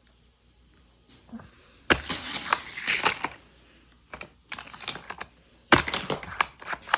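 Plastic toy pieces and packaging being handled, rattling and clicking rapidly in three bursts, the first starting about two seconds in.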